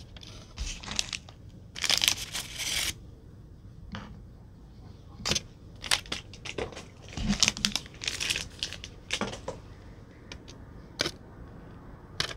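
Hands handling sweets and their plastic packaging on a table: bursts of crinkling and rustling, with a few sharp taps as pieces are set down.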